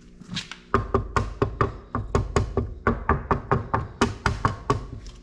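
Rapid series of sharp knocks, about four or five a second, starting about a second in.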